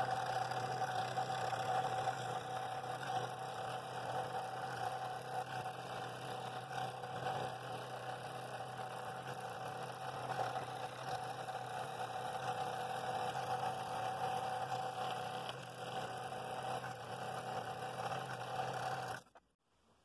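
Scroll saw running steadily while its blade cuts a 35-degree bevel through a wooden bowl blank to free a ring. The sound cuts off suddenly about 19 seconds in.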